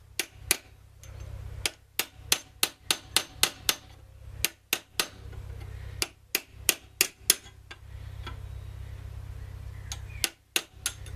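Small ball peen hammer tapping a steel centre punch to spread a brass rivet head on an old iron Suffolk door latch. Sharp metallic taps come in quick runs of several, with short pauses between the runs.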